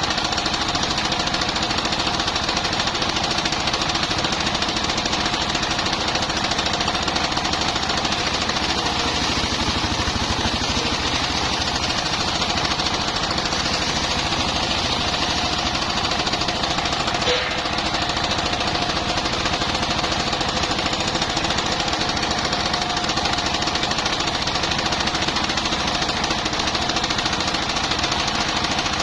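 Portable engine-driven circular sawmill running steadily: a continuous, rapid mechanical pulsing with a faint steady whine. There is one brief click about seventeen seconds in.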